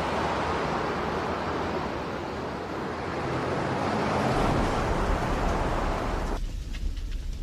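Steady rushing noise of blizzard wind, with wind buffeting the microphone. About six seconds in it cuts abruptly to a weaker, fluttering rumble.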